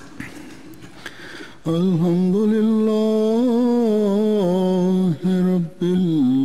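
A man's voice chanting in long, held notes with wavering ornaments, starting loudly just under two seconds in, after quiet room sound. It breaks briefly twice for breath near the end.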